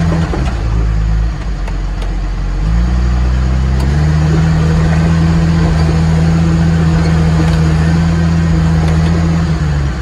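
Case 850L LGP bulldozer's diesel engine heard from inside the cab. The engine note drops just after the start, climbs back around three to four seconds in, holds steady at the higher speed, then falls again near the end.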